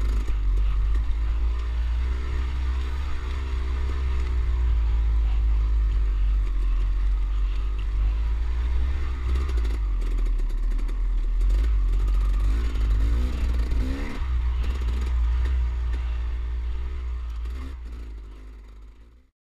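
Dirt bike engine running at low trail speed, its pitch rising and falling with the throttle, with some clatter from the tyres over loose rock. The sound fades out near the end.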